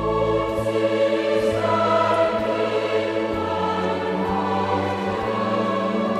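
Choral music: a choir singing long, held chords.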